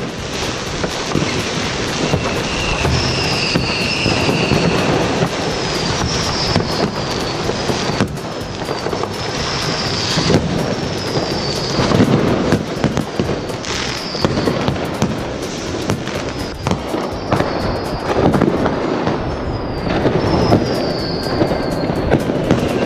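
New Year's Eve fireworks going off all around: a continuous crackle of bangs and firecrackers, with repeated short whistles falling in pitch.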